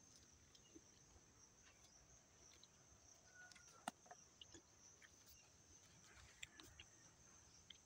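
Near silence: faint outdoor ambience with a steady high-pitched insect drone and a few scattered faint clicks.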